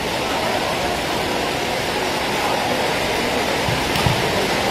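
Steady, even rushing noise, with a faint knock about four seconds in.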